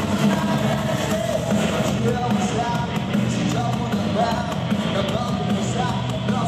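Live rock band playing loudly, with a singer's amplified vocals over electric guitar.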